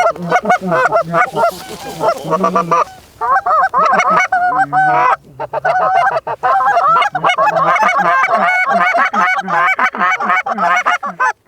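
A flock of geese honking continuously, many calls overlapping, with a brief lull about five seconds in; the sound cuts off abruptly near the end.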